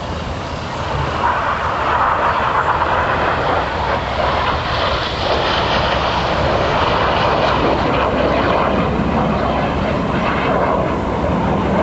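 Jet noise from the Red Arrows' BAE Hawk jets in flight: a loud, even roar that swells about a second in and then stays loud.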